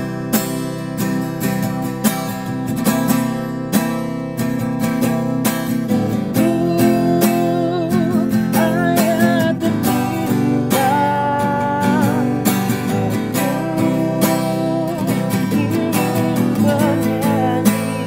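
Acoustic guitar strummed steadily, joined about six seconds in by a man singing a melody with a wavering vibrato.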